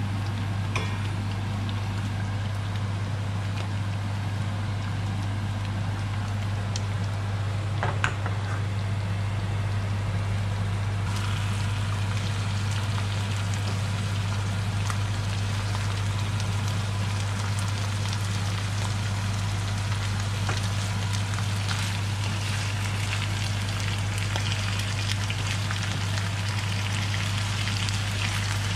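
Potato wedges in tomato sauce sizzling and bubbling in a frying pan while a wooden spoon stirs them, with a single knock about eight seconds in; the sizzle turns brighter and more hissing from about eleven seconds. A steady low hum runs underneath.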